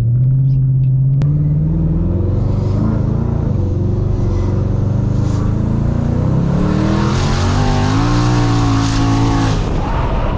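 Twin-turbo Ford Mustang GT's 5.0 Coyote V8 at full throttle from a rolling start, heard inside the cabin. Engine pitch climbs and drops back several times as the 10R80 10-speed automatic shifts, while the car breaks traction and starts to spin.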